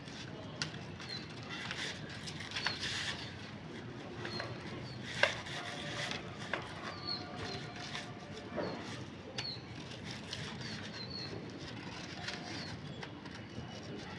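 Scissors cutting slits in folded chart paper, with a few sharp snips, the sharpest about five seconds in. Small birds chirp now and then in the background.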